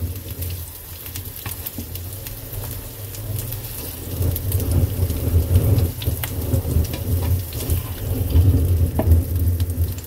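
Salmon patties sizzling and crackling in hot oil in a nonstick frying pan, with many small pops. Under it a low rumble grows louder from about four seconds in.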